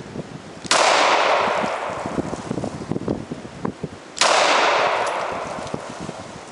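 Glock 22 .40 S&W pistol fired twice, about three and a half seconds apart; each loud shot is followed by a long fading echo.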